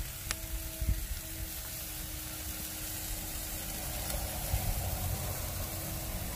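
Steak sizzling on a grill over a fire: a steady hiss.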